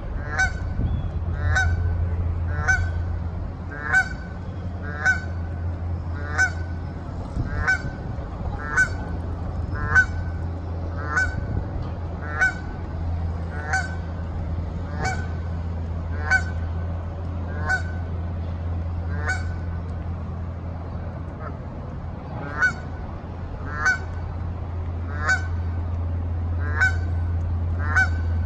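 Canada goose honking in short calls repeated about once a second, over a steady low rumble.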